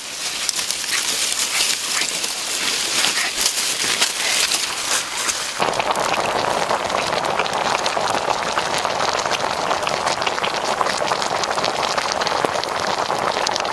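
A crackling, rustling noise for about the first five seconds, then an abrupt change to tomato sauce in a pan boiling hard around a whole duck and tomatoes: a dense, steady bubbling.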